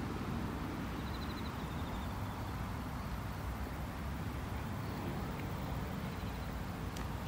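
Wind buffeting an unshielded phone microphone: a steady low rumble. A faint, short, high trill sounds about a second in and again near six seconds, and a single click comes near the end.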